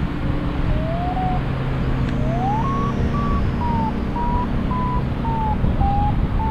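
Paragliding variometer beeping: a chain of short beeps whose pitch rises about two seconds in and then eases slightly. The tone signals that the glider is climbing in lift. Under it is a steady rush of wind on the microphone.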